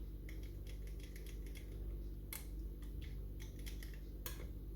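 Small irregular metallic clicks and scrapes of a wire pick working inside a five-lever ERA Fortress mortice lock, lifting at the levers to get under the fifth; a couple of sharper clicks stand out about two and four seconds in.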